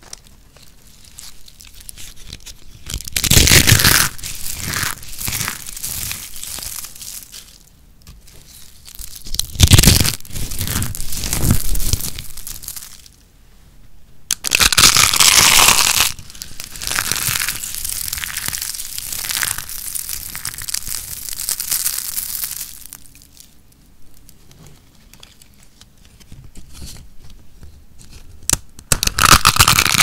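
Hands crushing and squeezing handfuls of crispy dry soap flakes and curls, a crunching and crackling that comes in bouts with quieter rustling between. The longest and loudest spell of crunching runs through the middle.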